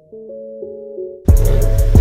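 Background music: soft held synth or keyboard notes, then a loud beat with heavy bass and sharp drum hits cuts in about a second in.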